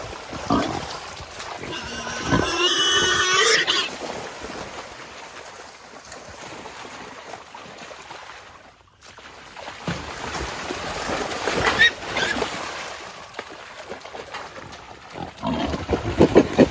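Trapped wild hogs squealing and grunting, with one long squeal about two seconds in and shorter grunts near the end.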